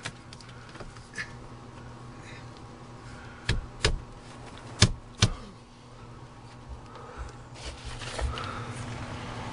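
Two pairs of sharp clicks and knocks near the middle from hands and a tool working on overhead PEX pipe, over a steady low electrical hum.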